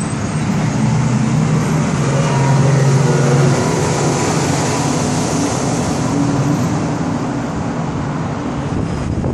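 Single Yamaha outboard motor on an aluminium pontoon boat running at speed as the boat passes close below. Its steady hum is loudest about three seconds in, then fades under the hiss of the wake.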